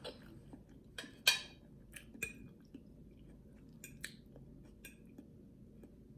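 Close-miked chewing with a mouthful of food: scattered short wet smacks and clicks, the loudest just over a second in.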